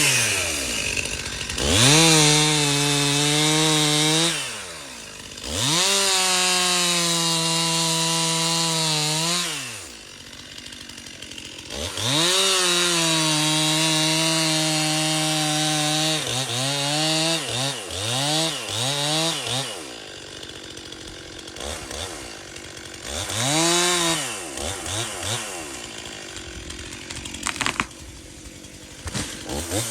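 Two-stroke chainsaw revved to full throttle and held for several seconds at a time, three times, dropping back toward idle between. In the second half it gives a run of quick throttle blips and one more short rev.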